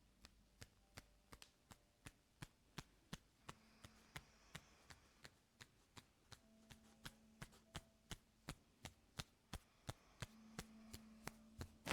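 Ear-cleaning tool working close inside the ear canal: a faint, even run of light clicks, nearly three a second. A low hum comes and goes under it.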